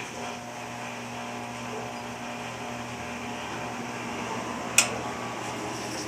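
Whirlpool 15 kg washing machine running with a steady hum and a held low tone, with one sharp knock about five seconds in. The owner blames the machine's noise on its bearings.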